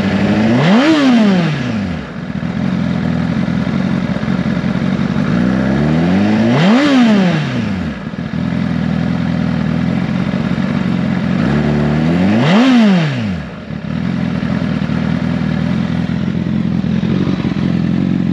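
Honda CBR1000RR inline-four with an M4 carbon-fibre slip-on exhaust idling, blipped three times: each rev rises quickly and falls back to idle, about six seconds apart, the first about a second in.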